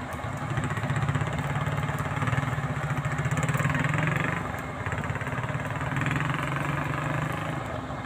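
An engine running steadily with a low, rhythmic note, and a higher engine sound that rises and fades twice.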